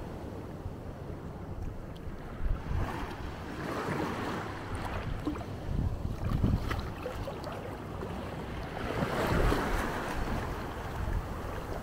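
Small sea waves washing onto a sandy beach, swelling twice (about four seconds in and again near ten seconds) and easing between, with wind gusting on the microphone.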